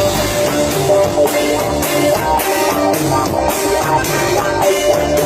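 Live band playing during a sound check: electric guitar and drum kit with held instrument notes over a steady beat.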